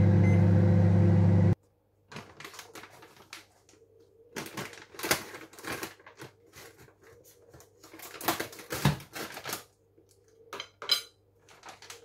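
Microwave oven running with a loud, steady hum that cuts off abruptly about a second and a half in. After that come irregular rustles and knocks of a plastic bag of frozen king prawns being handled.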